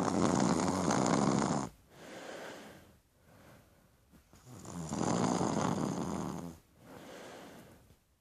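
Snoring in deep sleep: two loud snores about five seconds apart, each followed by a softer breath.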